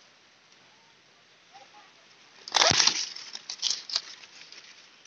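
Maize leaves rustling and brushing against the phone's microphone: a loud rustle with a thump about halfway through, then a few dry crackles.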